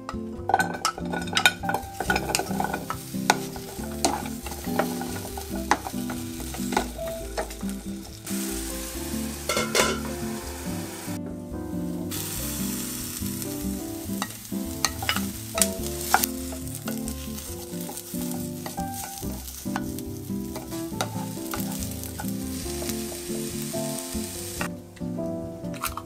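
Carrot and sweet potato sticks sizzling in sesame oil in a ceramic-coated frying pan, stirred with a wooden spatula that clicks against the pan. Green pepper strips are tipped in partway through.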